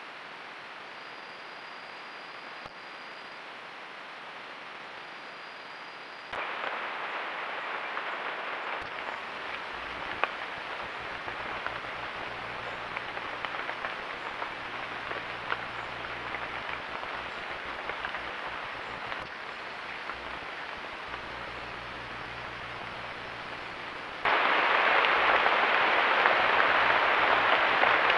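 Steady noisy hiss with fine crackles, stepping up in level about six seconds in and again sharply near the end.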